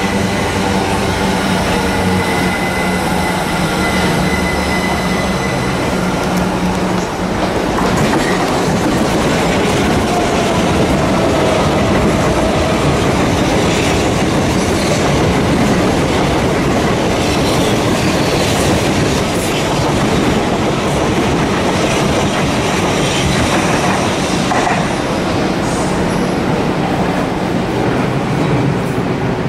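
Southern Class 377 Electrostar electric train on the rails, its motor whine falling in pitch over the first several seconds. Then a steady loud rumble of wheels on track, with scattered wheel clicks and brief thin squeals.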